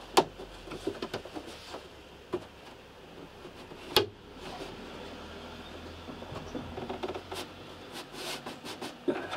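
Scattered knocks and clicks of a wooden panel being pushed and worked into place against a timber frame. The loudest knock comes about four seconds in, with a few more near the end.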